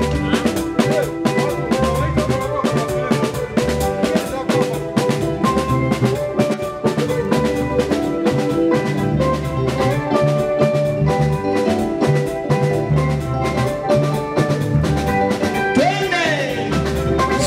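Live band playing with electric guitar, bass guitar and drum kit over a steady beat.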